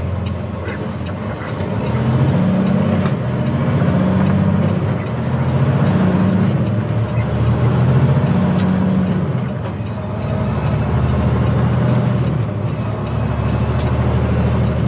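Semi truck's diesel engine heard from inside the cab, pulling away and climbing in pitch several times as it works up through the gears, then running steadily at road speed.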